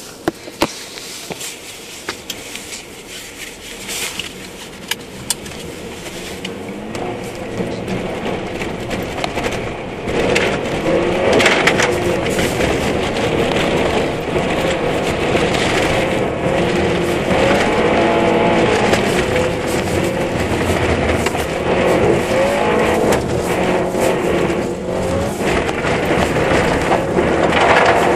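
Honda Civic Type-R FN2's four-cylinder engine heard from inside the cabin, revs rising and dropping as it is driven hard, over the steady hiss of studded tyres on snow and ice. It starts quieter with a few sharp clicks and grows louder over the first ten seconds or so.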